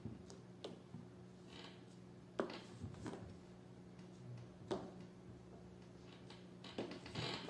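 Chess pieces set down on the board during the opening moves: a few sharp clicks a second or two apart, with brief soft rustles, over a low steady hum.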